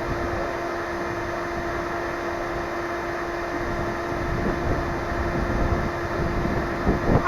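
A steady mechanical hum holding one constant pitch, like a small motor running, over a rough low rumble.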